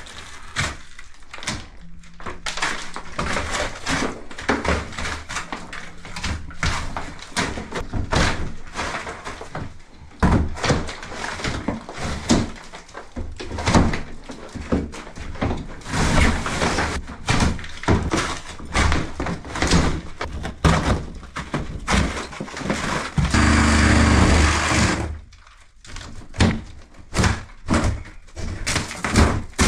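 Hand demolition of a wall: plasterboard being torn and broken away from timber lining boards, with repeated irregular thuds and cracks and a longer crash about three-quarters of the way through. Near the end, timber boards are wrenched off and splinter.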